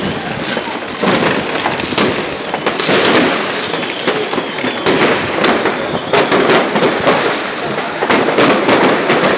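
Many fireworks and firecrackers going off at once across a city: a continuous crackle of overlapping pops and bangs, with louder single bangs scattered irregularly through it.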